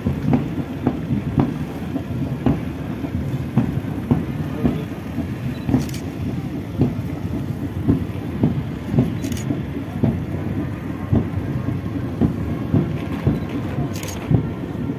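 Boots of a marching parade column striking the pavement in step, about two strikes a second, over the low, steady running of motorcycle engines.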